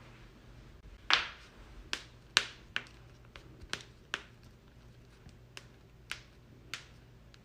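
Joints cracking: a string of about a dozen sharp pops at uneven intervals, the loudest two near the start and the later ones fainter.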